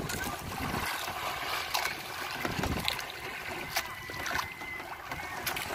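Sea water lapping and splashing against the side of a small wooden boat, with a few light knocks.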